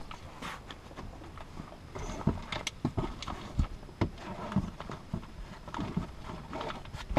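Handling noise from a Nautiraid Grand Narak 550 folding kayak being assembled: irregular light knocks and rustles as a cord is passed over the frame's ribs and the hull fabric is moved.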